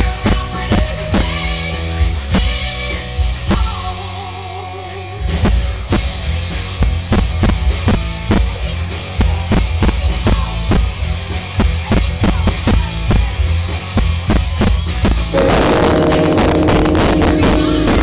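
Rock music with a steady drum-kit beat and guitar. The drums drop back for about a second around four seconds in, then return, and the music gets fuller and louder about three seconds before the end.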